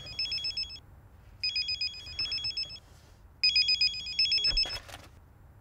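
Mobile phone ringing with an electronic trilling ringtone: bursts of rapid, high warbling tones about a second and a half long, repeating roughly every two seconds.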